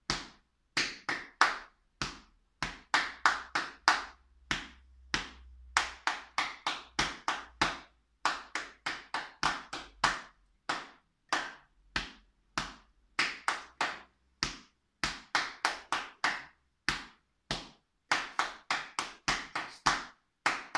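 Body percussion: hand slaps on the knee and on the chest, playing two interlocking rhythms. The knee part beats out the rhythm of the tongue twister "Un plat blanc pla, ple de pebre negre està" while the other hand keeps the accompanying pattern, in repeating phrases with short pauses between them.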